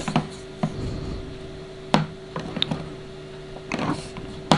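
Handheld densitometer being moved and set down on a film strip over a light table to take the next tone-scale density reading: a few scattered light clicks and taps, the sharpest near the end, over a faint steady hum.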